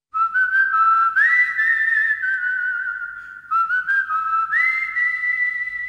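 A whistled melody in two phrases. Each phrase slides up to a higher held note with a slight wavering.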